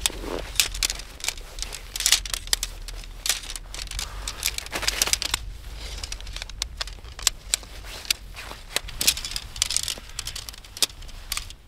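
Tent fabric rustling and crinkling as it is handled, with many sharp clicks and knocks from the tent poles being fitted.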